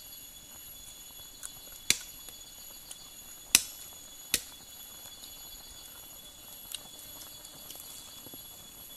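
Forest insects trilling steadily in several high tones, with a few sharp pops from a wood campfire; the loudest pop comes about three and a half seconds in.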